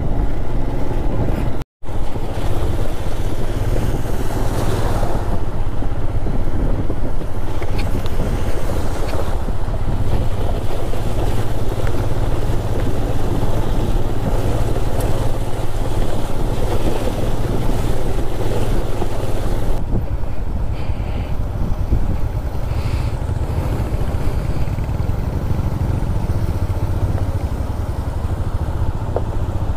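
A motorcycle engine running steadily under way, mixed with heavy wind rushing over the rider's microphone. The sound cuts out for an instant just under two seconds in.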